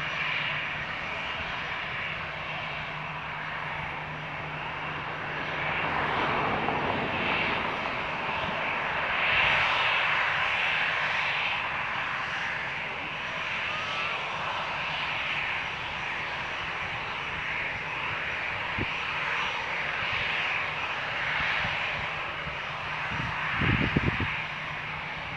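Airliner engine noise: a steady roar that swells and eases a little over the seconds, with a few short low thumps near the end.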